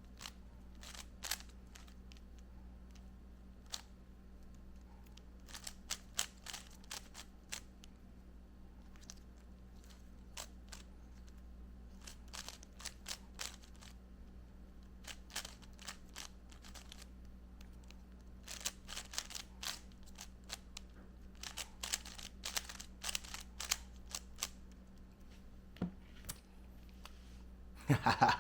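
Rubik's Cube layers being turned by hand in a speed solve: clusters of quick plastic clicks and clacks with short pauses between them.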